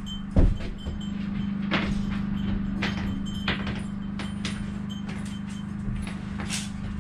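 Loose nails and metal hurricane ties clinking and clicking as they are handled and laid out, with a thump about half a second in, over a steady low hum.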